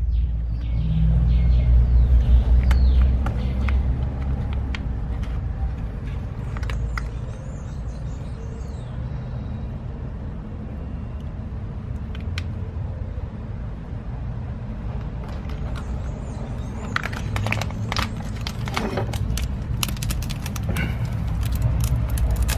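Leather work gloves scraping and rustling against a spiny opuntia stem and the potting soil as the stem's base is worked loose. The clicks and scrapes come scattered at first, then thick in the last five seconds, over a low rumble.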